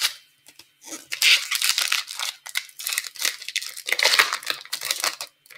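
A 2015-16 Upper Deck Series 2 hockey card pack's wrapper being torn open and crinkled by hand: a dense run of crackling rustles starting about a second in.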